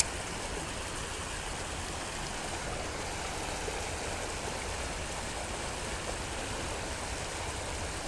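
River water rushing steadily over the edge of a concrete crossing and spilling into the pool below.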